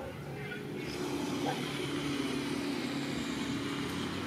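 A motor vehicle engine running steadily, a low hum that comes up about a second in.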